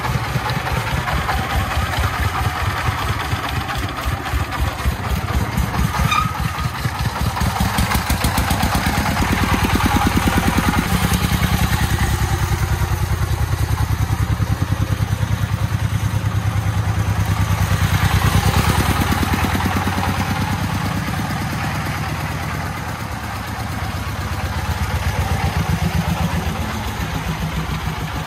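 Single-cylinder diesel engine of a loaded công nông farm truck running as it drives slowly, with an even beat of firing strokes. It grows louder twice, around ten and around eighteen seconds in.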